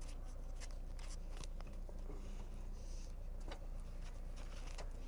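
Scattered clicks and rustles of a racing helmet being pulled off and handled inside a small car cockpit, over a steady low hum.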